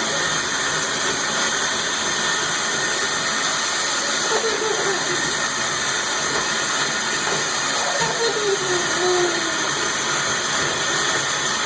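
Steady hiss of running water. A short call falls in pitch twice, about four and eight seconds in.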